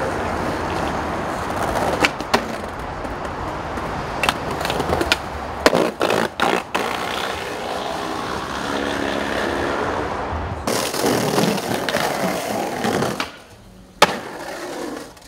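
Skateboard wheels rolling on pavement and trucks grinding along a stone ledge. A quick run of sharp wooden clacks from the board about six seconds in, and another single clack near the end.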